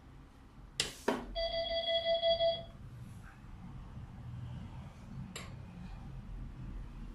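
Two sharp clicks from the SCHMIDT Manual Press 300 at the end of a press stroke, followed by a pulsing electronic beep of about a second and a half from its force-and-stroke monitoring controller, signalling the result of the press cycle. A single faint click comes later.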